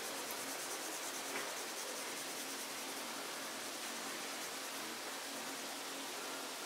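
Steady hiss with the faint scratching of a colouring pen rubbed back and forth on paper in quick small strokes, and one small tick about a second and a half in.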